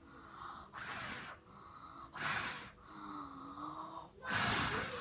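Slime being squished and worked by hand, giving three short wet squelching bursts, the last and loudest near the end.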